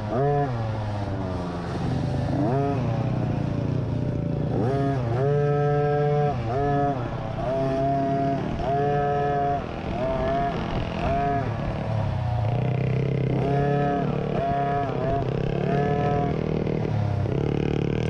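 50cc youth dirt bike engine revving up and down over and over as the throttle is opened and closed, each rev a quick rising then falling whine.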